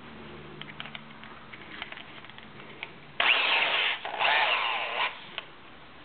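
Electric drill boring into a tubular lock cylinder in two short bursts, each about a second long, after a few light clicks of handling.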